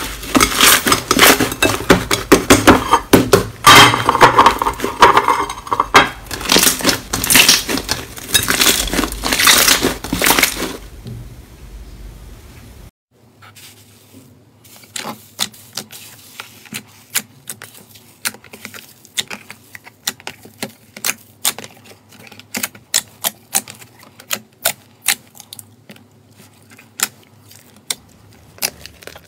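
Slime being squeezed and kneaded by hand, giving loud, dense crackling and popping. After about eleven seconds it drops away, and quieter, sparser pops and clicks follow as a hand presses foam slime.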